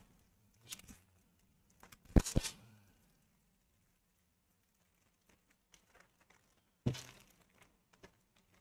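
Clear plastic bag holding a model kit's plastic sprues crinkling as it is opened and handled: a few short rustles, the loudest about two seconds in and another near seven seconds, with small clicks and quiet between.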